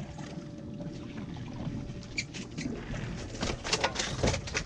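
Water slapping and splashing against the stern of a small fishing boat at sea, the splashes coming thicker and faster over the last second and a half.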